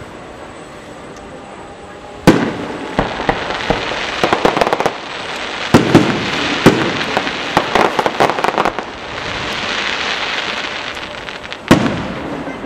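Aerial firework shells bursting: a sharp bang a little over two seconds in, then a run of crackling pops and further bangs, a steady hiss, and another loud bang near the end.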